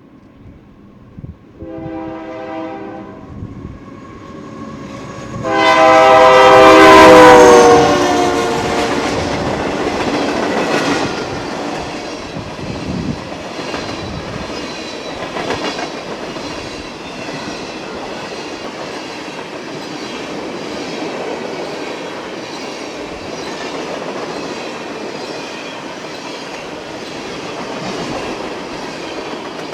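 Union Pacific ethanol train passing: the locomotive's horn sounds a short blast about two seconds in, then a longer, much louder blast whose pitch drops as the locomotive goes by. After that comes the steady rumble and clatter of the tank cars rolling past.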